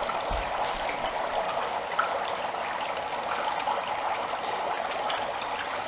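Dry ice bubbling steadily in hot water, a constant rushing, fizzing bubbling as it gives off thick fog.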